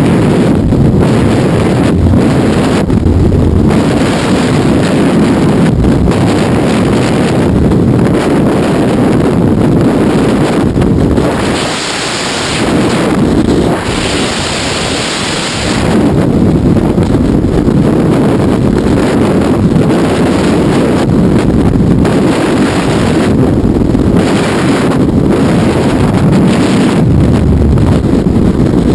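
Freefall wind buffeting a skydiver's helmet-camera microphone: a loud, heavy rushing. For a few seconds around the middle it turns thinner and hissier, then the deep rush comes back.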